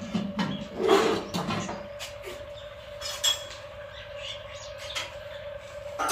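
Knocks and clatter of a metal cooking pot being lifted off a clay wood-fired stove and set down, loudest about a second in, over a faint steady hum. Birds chirp in the background.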